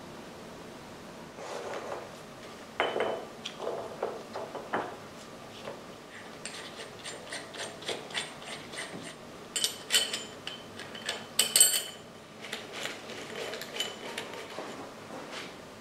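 Metal-on-metal clinks and clatter as a steel front sprocket and its lock plate are handled and fitted onto the splined gearbox shaft of a Harley Sportster engine, with runs of rapid clicking from a ratchet driving in the sprocket bolts. The sharpest metallic strikes come a little past the middle.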